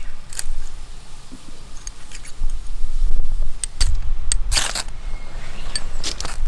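Several sharp clicks and clinks of objects being handled, with a short scraping rustle about four and a half seconds in, over a steady low rumble.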